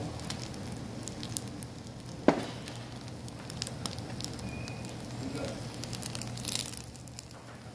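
Fried rice sizzling and crackling in a wide metal stew pan on a tabletop burner, with one sharp knock about two seconds in. Near the end a spoon stirs through the rice.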